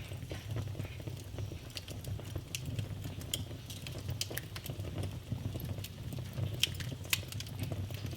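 Wood fire burning in a fireplace: irregular sharp crackles and pops over a low, steady rumble of flames.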